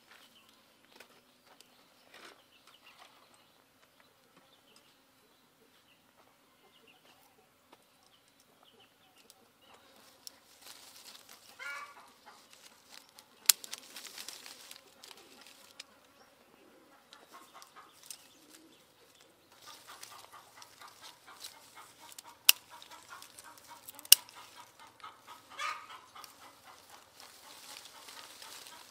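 Scissors snipping lime stems off the tree: three sharp snips in the second half, with leaves and branches rustling as they are handled. A bird calls twice in the background.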